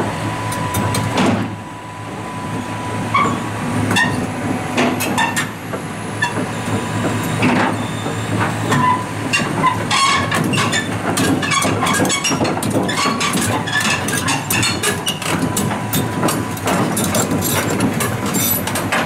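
Caterpillar 320 tracked excavator driving down off a trailer, its diesel engine running steadily under repeated metallic clanks from the steel tracks and ramps, the clanks coming thick and fast through the second half.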